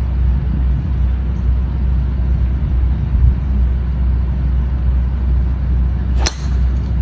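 A driver striking a teed golf ball, one sharp crack about six seconds in, over a steady low rumble.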